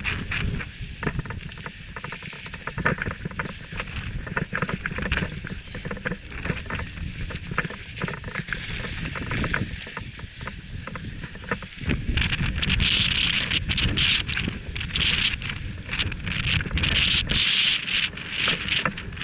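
Mountain bike descending over loose gravel and rocks: tyres crunching and the bike rattling with constant small knocks, under a low wind rumble on the microphone. About twelve seconds in, the gravel crunch turns louder and harsher.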